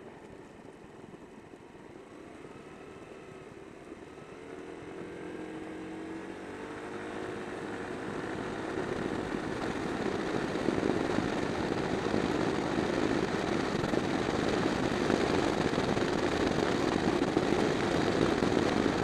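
Suzuki Sixteen scooter under way, its engine note rising as it picks up speed about four seconds in. Wind and road noise grow steadily louder as it gathers pace.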